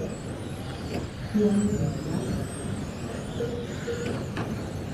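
Electric RC touring cars racing round the track, their motors whining higher and lower as they speed up and slow down.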